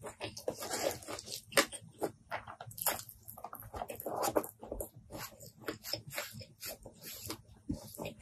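Close-miked eating sounds: wet chewing and irregular lip smacks on a mouthful of rice, mixed with sticky squelches of fingers squeezing rice on a wooden board.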